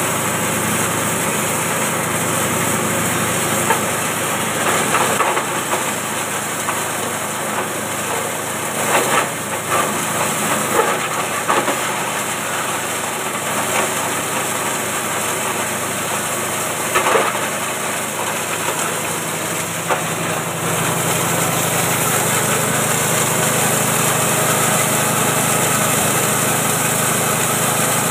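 A small 6.5 hp petrol engine runs steadily, driving a grass chopper on a feed-processing machine. Short crackling bursts about 5, 9 to 12 and 17 seconds in are grass stalks being fed in and chopped. The sound grows a little louder from about 20 seconds in.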